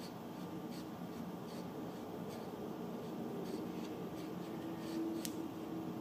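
Faint, irregular light clicks, about one or two a second, with one sharper click about five seconds in, as the flywheel of an HM-01 model hit-and-miss engine is turned slowly by hand.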